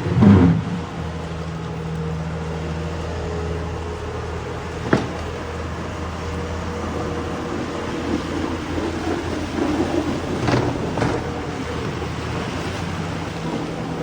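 A motor vehicle's engine running steadily with a low hum on a snowy street, with a loud knock right at the start and a sharp click about five seconds in.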